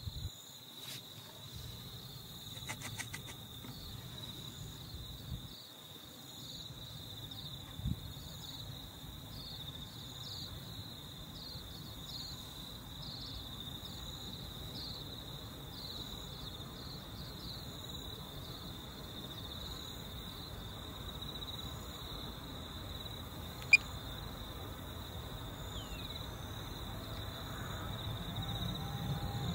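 Insects chirping steadily in a high, even chorus with regular short chirps, over a low rumble that grows louder near the end. A single sharp click stands out about three-quarters of the way through.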